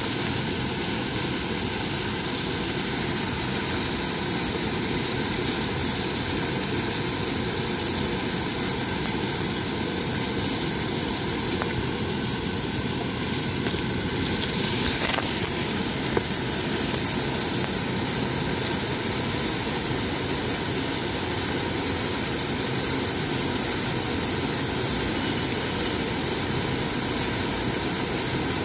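Waterfall cascading down a rock face: a steady rush of falling and splashing water.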